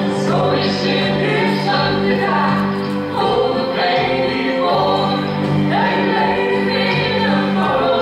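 A song: voices singing over an accompaniment of held low notes and chords.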